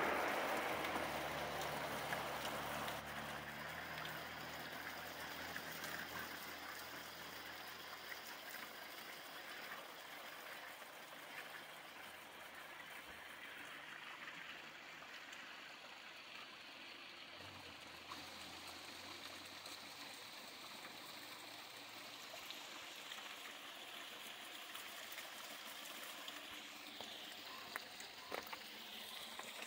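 A passing car fades away over the first few seconds, then a faint steady rushing hiss stays on, with a few light clicks near the end.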